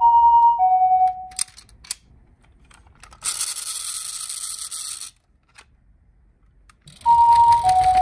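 Toy ambulance's electronic two-tone 'pee-paw' siren, alternating between a higher and a lower note about every 0.6 s, which stops about a second in. After a few light clicks comes a rasping whir of about two seconds as the toy's wheel is worked by hand. The siren starts again near the end, over the low rumble of the toy rolling across a wooden table.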